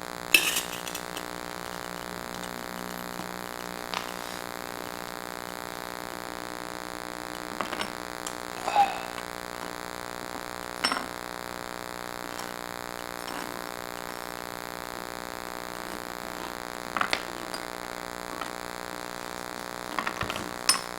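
Steady electronic hum made of many fixed tones from a camera's faulty recording, with a handful of short clinks and knocks scattered through it.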